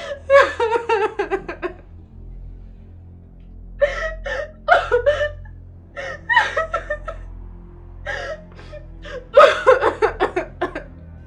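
A woman crying and sobbing in grief, in several bouts of broken, pulsing vocal sounds with short pauses between.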